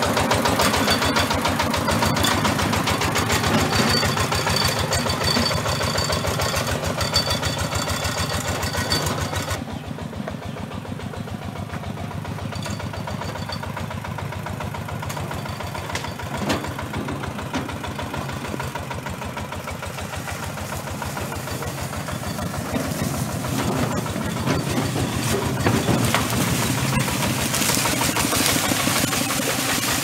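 Single-cylinder diesel engine of a two-wheel hand tractor running with a fast, even chugging. The sound turns abruptly quieter and duller about ten seconds in, then grows louder again over the last several seconds.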